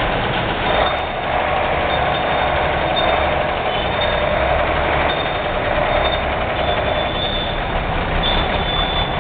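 Road traffic: truck and motorcycle engines running, giving a loud, steady noise throughout.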